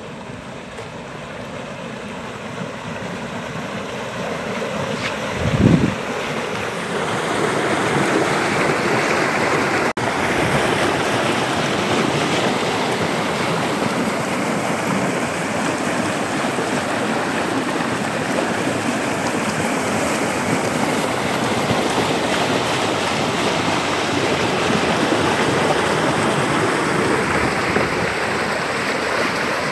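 Grey wastewater from a power plant's slag and ash dump rushing down a channel in a churning torrent, getting louder over the first several seconds as the microphone draws near, then steady. A brief low thump on the microphone about six seconds in.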